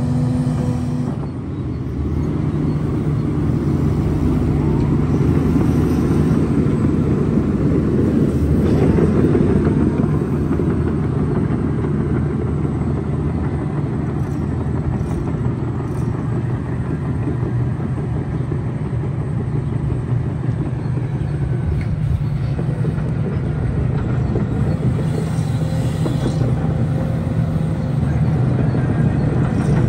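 Hidromek 310 crawler excavator's diesel engine running steadily under working load, with a broader rush of machine noise that swells about eight to ten seconds in and then eases.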